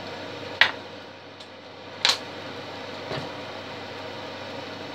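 Steady hiss of a gas hob burner, with a sharp knock about half a second in, another about two seconds in and a fainter one a second after that.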